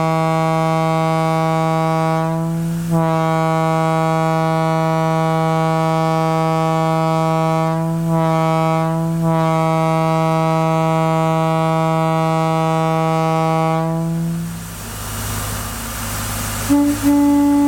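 Locomotive air horn held in long blasts on a single low, steady note, with a brief break about three seconds in, cutting off after about fourteen seconds. A couple of seconds of hissing follow, and another horn starts sounding near the end.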